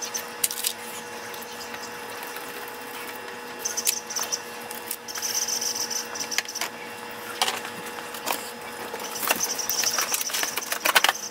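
Hand-tool work on a car's AC compressor mounting bolts: scattered metal clinks and knocks, with a few short spells of rapid clicking as the bolts are worked loose and the compressor is lifted free.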